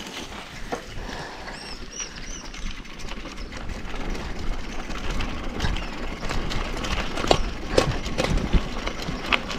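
Bicycle rolling over a gravel dirt track, tyres crunching on loose stones, with the frame and handlebars rattling and knocking over bumps. It gets louder and rougher from about four seconds in.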